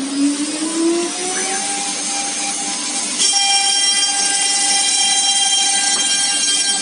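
CNC router running: its spindle whine rises in pitch as it speeds up. About three seconds in, a louder, higher whine of several steady tones starts suddenly and holds.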